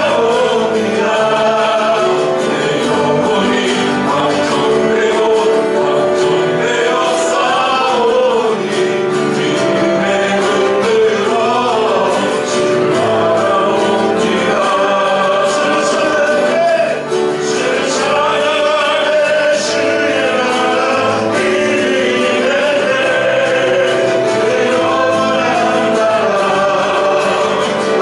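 Church praise team singing a worship song together, with continuous sustained sung notes throughout.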